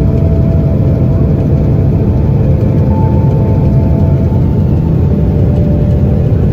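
Loud, steady low rumble inside a Boeing 777-200 airliner's cabin from its failed Pratt & Whitney PW4000 engine. The engine's cowling and inlet are torn away and its core is burning, and air is rushing around the wrecked nacelle.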